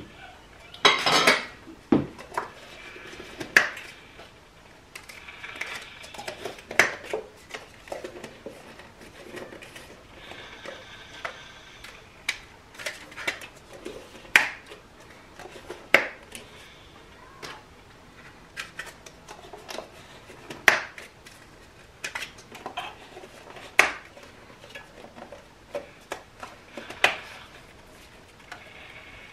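Irregular clicks, taps and light clatter of disposable hot-cocoa cups being handled on a kitchen counter, with plastic lids snapped onto paper cups and cups set down.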